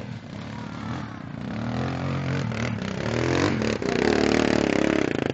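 Trail dirt bike engine revving hard under load as it climbs a steep dirt hill. It gets louder as the bike comes up close, about four seconds in.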